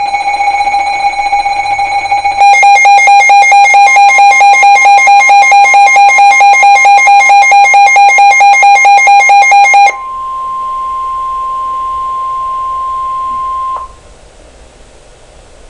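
Emergency alert tones for a flood warning. An electronic alarm sounds a steady high beep for about two seconds, then pulses rapidly at about five beeps a second until about ten seconds in. A single steady tone, the NOAA Weather Radio warning alarm tone, then carries on alone for nearly four seconds before cutting off.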